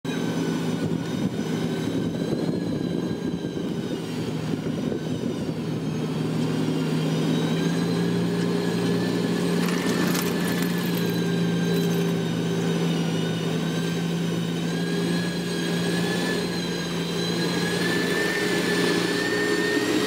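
Diesel engines of a motor grader and road rollers running as they work a dirt road bed: a steady low drone with a thin high whine over it that rises slightly near the end.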